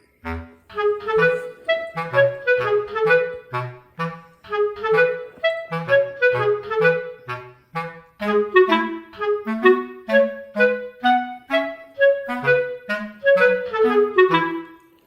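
Background music: a bouncy tune carried by a woodwind melody over a walking bass line, in short, evenly paced notes.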